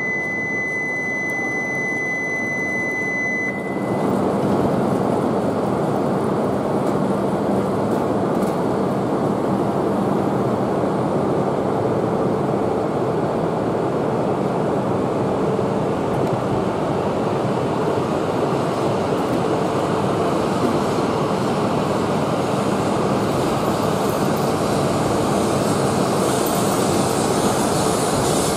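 A steady high beep tone for about the first three and a half seconds, then the steady rushing noise of a Shinkansen train moving along the platform, with a higher hiss building near the end.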